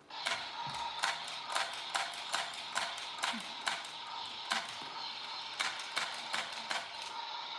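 Battery-operated toy power tool from a children's workshop set running: a steady whirring buzz with regular clicks about two to three times a second, cutting off at the very end.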